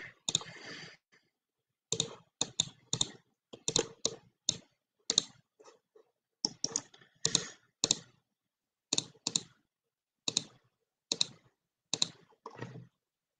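Computer mouse clicking: short, sharp clicks at an irregular pace of about one or two a second, often in quick pairs.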